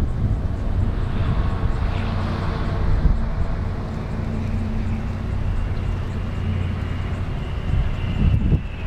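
Boeing 777-200ER twin-jet airliner on final approach, its engines a distant low rumble; about halfway in a high fan whine comes up and slides slowly lower as the jet closes in.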